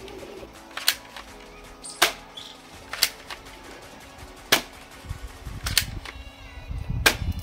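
Toy AK-47 BB gun firing single shots: six sharp snaps, roughly one a second.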